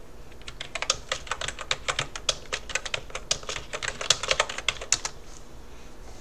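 Typing on a computer keyboard: a fast, irregular run of key clicks that starts about half a second in and stops about five seconds in.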